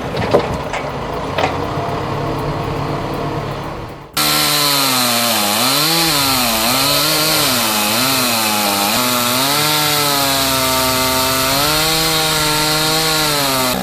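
A chainsaw engine runs loud and fast, its pitch dipping and rising again and again as it loads up in the cut and frees. It comes in suddenly about four seconds in, after a quieter stretch of mechanical noise with a few knocks.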